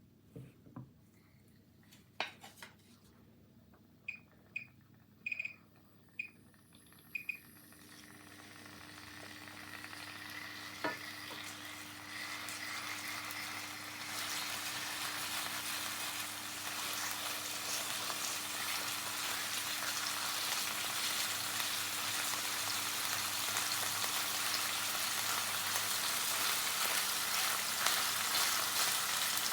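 Salmon frying in melted butter in a pan: a steady sizzle that swells up from near quiet and grows louder as the pan heats. Before it, a few sharp clicks and a short run of high beeps.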